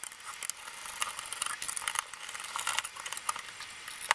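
Small irregular clicks and scraping of plastic and sheet metal as a screwdriver pries at the snap-fitted black plastic frame inside a car radio navigation head unit.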